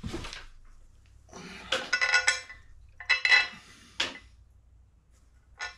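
Steel parts of a Ballard V2 Super Jack lawn mower jack clanking together as a lift arm is handled and fitted against the base. There are several metallic clanks with brief ringing, in three bunches over about three seconds.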